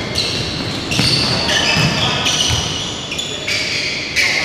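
Basketball shoes squeaking on a hardwood gym floor: many short, high squeals overlapping as players run and cut, with a basketball bouncing now and then, in a large gym.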